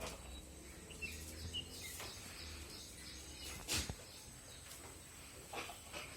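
Farmyard ambience: small birds chirping and a few short hen clucks near the end, with one sharp knock a little past halfway.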